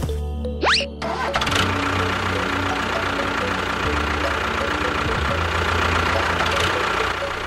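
A small motor starting up with a quick rising whine, then running steadily.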